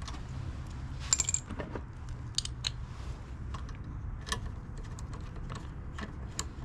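Small metal mower parts and hand tools clicking and clinking as they are handled during carburetor removal: a scattered run of light clicks and a few brief metallic rings over a low steady hum.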